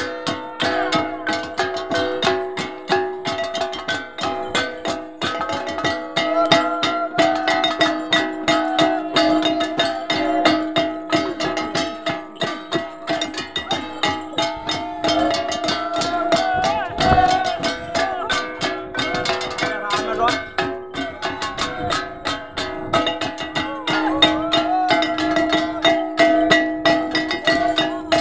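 Timorese babadok hand drums beaten with sticks in a fast, steady rhythm, with gongs ringing throughout and voices over them.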